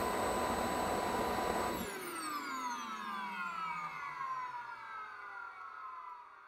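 Engines of a radio-controlled L-1011 TriStar model airliner running steadily with a high whine, then shut off about two seconds in and spooling down, several whining tones falling in pitch and fading away.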